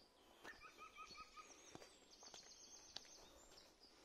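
Faint woodland birdsong: a short run of five repeated whistled notes, then a fast high trill, with other high chirps around them. A few soft footsteps on the path.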